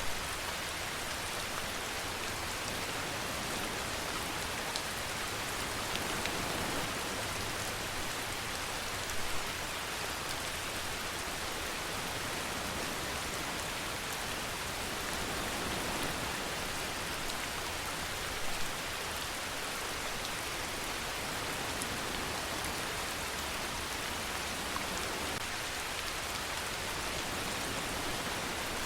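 Steady rain falling on a surface, a dense even patter with no let-up. A couple of slightly louder spatters stand out, about nine and eighteen seconds in.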